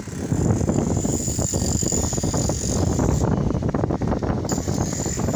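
Wind buffeting the phone's microphone, a loud low fluttering rumble, with a faint steady high whine that drops out briefly past the middle.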